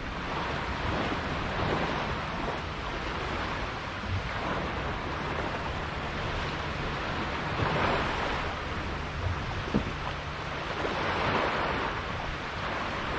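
Water rushing and splashing along a sailboat under way, swelling louder a couple of times, with wind buffeting the microphone.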